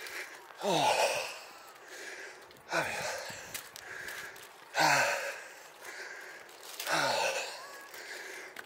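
A person breathing heavily from the exertion of climbing steps: a loud voiced out-breath with falling pitch, like a sigh, about every two seconds, with quieter in-breaths between.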